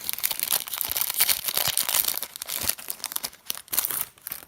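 Trading card pack wrapper crinkling as it is torn open and handled: a dense run of crackles that thins out near the end.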